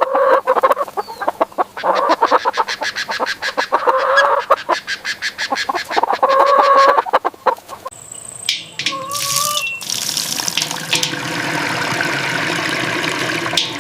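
Chickens calling with rapid, repeated clucks for the first several seconds. Then, about ten seconds in, a steady rush of water being poured, as fresh drinking water is filled for the hens.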